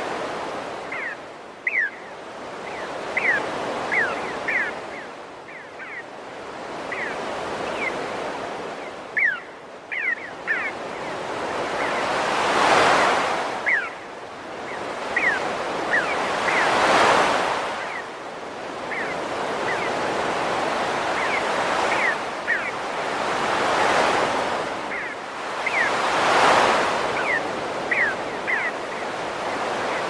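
Sea surf washing on the shore, swelling and fading every few seconds, with short, thin bird calls repeating over it.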